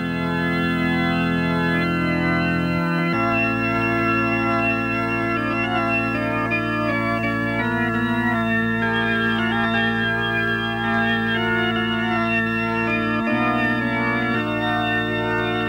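Organ music in long held chords, the harmony shifting about three seconds in and again near the end.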